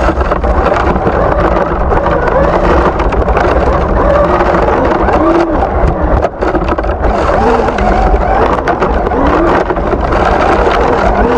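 Traxxas UDR RC truck driving, its electric motor whining up and down in pitch several times with the throttle, over a steady low rumble.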